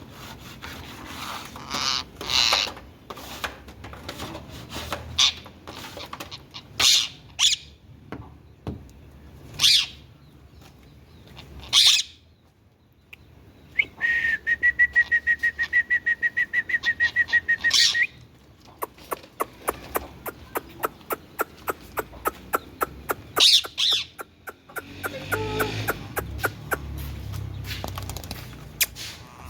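Indian ringneck parakeet calling: short, sharp, high-pitched calls repeated a handful of times, with a fast pulsing trill about halfway through.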